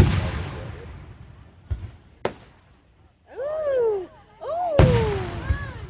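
Aerial firework shells bursting: a loud boom at the start with a long fading tail, two small pops around two seconds in, and a second loud boom near five seconds. Between the booms a voice calls out twice in long cries that fall in pitch.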